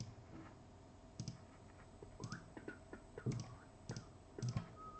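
Faint, scattered clicks of a computer mouse and keyboard, some in quick pairs, about one a second.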